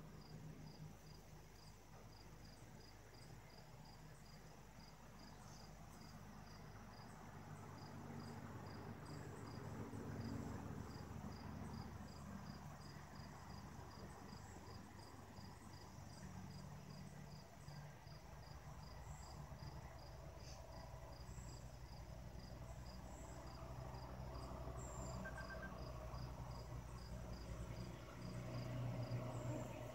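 Cricket chirping faintly, a high chirp repeating at an even pace, over a low background rumble.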